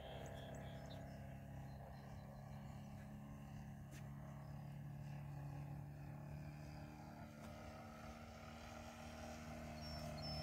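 Distant, steady drone of a 120-inch Turbo Bushmaster RC airplane's DA-70 twin-cylinder two-stroke gas engine with a canister muffler in flight. The drone grows louder near the end as the plane comes closer.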